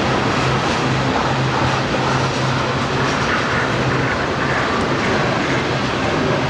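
A freight train of loaded tank cars rolling past steadily. The wheels make a continuous rumble on the rail, with a steady low hum underneath.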